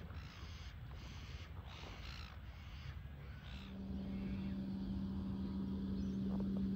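Seagulls calling, a run of short harsh squawks. A little over halfway through they give way to a steady low hum.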